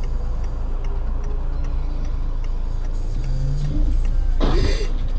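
Steady ticking, as of a car's turn-signal relay, over a low engine hum inside the car. About four and a half seconds in comes a brief, loud noisy crash: a car colliding with another car ahead.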